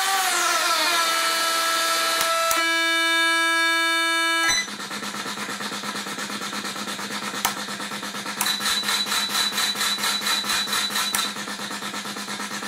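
SN76477 sound-chip noise machine (FusoElektronique NDR-113) putting out a steady buzzy synthesized tone rich in overtones. About four and a half seconds in it cuts over to a fast pulsing buzz. A single click follows, then a high whistling tone rides on the pulses for about three seconds before it drops out.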